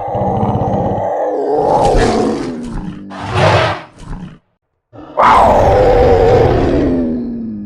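Custom Carnotaurus roar sound effect: a long rasping roar, a shorter loud burst, a brief pause, then a second long roar that slides down in pitch toward the end.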